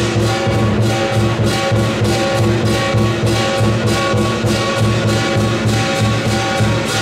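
Southern lion dance percussion: the big lion drum beating a steady driving rhythm, with crashing cymbals and a ringing gong over it.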